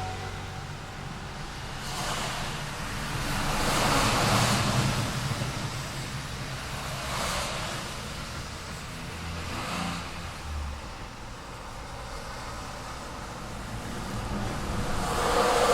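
City street traffic: cars passing one after another, each one's tyre and engine noise swelling and fading over a steady background of road noise. The loudest passes come about four seconds in and near the end.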